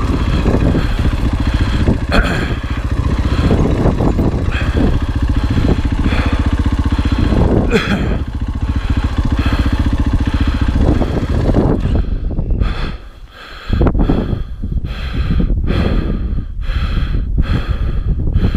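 Single-cylinder four-stroke dirt bike engine, a 2020 Husqvarna FE 501, running steadily under throttle. About two-thirds of the way through the throttle is shut and the engine briefly drops away, then picks up again in short on-and-off bursts of throttle.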